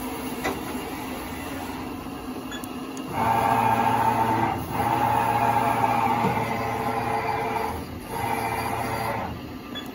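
Haas vertical machining centre's axis servo motors and ball screws whining as the table moves under power, in three runs of a few seconds each starting about three seconds in, over the machine's steady running hum.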